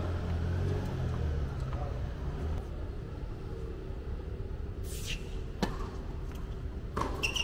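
Tennis balls being hit by rackets and bouncing on a hard court during a rally: a few sharp pops, the sharpest about five and a half seconds in and several more near the end. A low rumble underneath fades out within the first couple of seconds.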